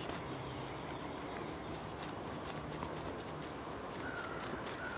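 Faint, continuous scratching and crumbling of old, very dry potting soil being picked and broken away from a haworthia's roots.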